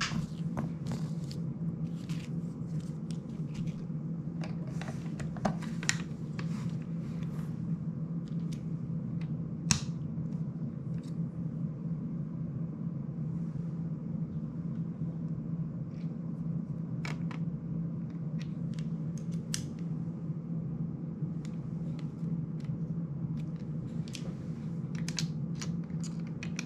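Small clicks and taps of a screwdriver, a bit case and a drone frame being handled on a table, scattered irregularly, over a steady low hum.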